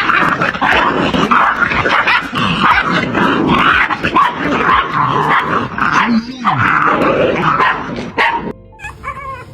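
Puppies yapping and growling nonstop, then the noise cuts off near the end.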